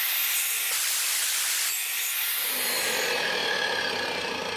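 Wet tile saw running, its blade cutting through a glazed subway tile: a loud, steady, hissing grind that eases a little about three seconds in.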